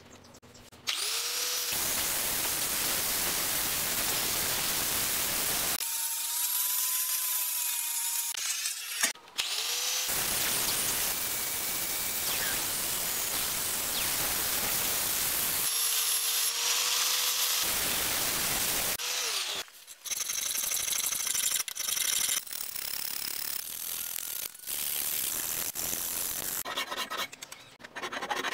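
Angle grinder with a flap disc grinding a 5160 spring-steel knife blade in long passes, with two short breaks where the grinder runs freely with a steady whine. In the last several seconds it gives way to uneven rasping strokes of a hand file along the blade.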